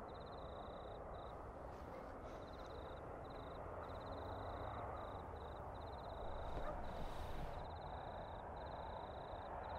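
Quiet night ambience: a steady low hiss of background noise, with a faint high trill that keeps pulsing on and off. A brief soft swell of sound comes about two-thirds of the way through.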